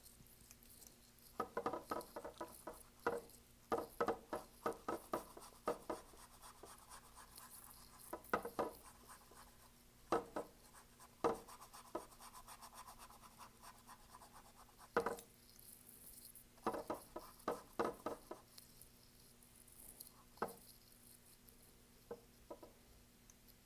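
Paintbrush working acrylic paint onto a canvas: irregular clusters of quick scratchy taps and short strokes, with pauses between them.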